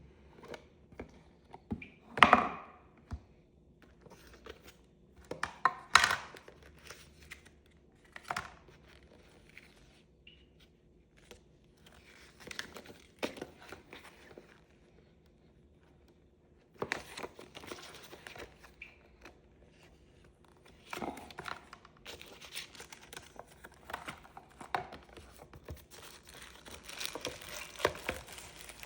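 Packaging being unboxed by hand: tearing and crinkling with knocks as the box is handled. The sound comes in scattered bursts, two louder ones in the first six seconds, then denser crinkling through the second half.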